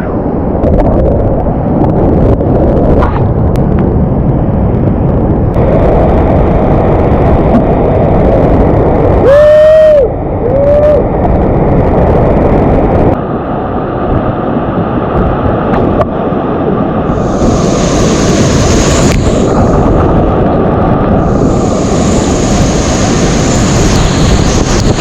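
Whitewater rapids rushing and splashing around a kayak, a loud steady wash of water noise. About ten seconds in there is a brief louder burst, and in the last third there are stretches of hissing spray.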